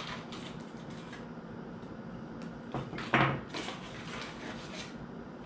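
A small cardboard box being opened and the plastic plug adapters inside it handled: light scrapes and clicks, with one louder knock a little after three seconds in.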